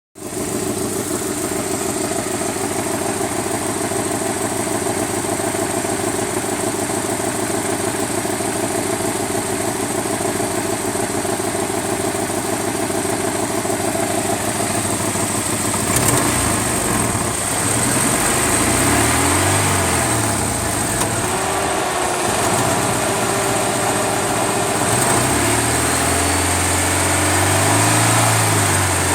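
Engine idling with a ticking noise, then revved up and down several times from about halfway through.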